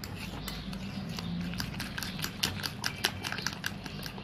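Eggs and sugar being beaten by hand in a ceramic bowl: the utensil clicks against the bowl in a fast, steady rhythm of several strokes a second.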